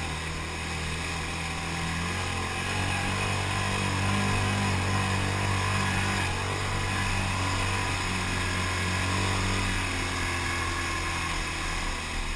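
Can-Am Outlander XMR 1000 ATV's V-twin engine running under load to push through deep mud where the quad is getting stuck. Its pitch steps up about two seconds in, holds steady, and drops back near the end.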